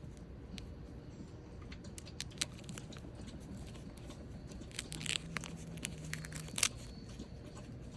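Doll packaging being unwrapped by hand: scattered crinkles, rustles and small crackles. There is a louder cluster of crinkling about five seconds in and one sharp crackle shortly before the end.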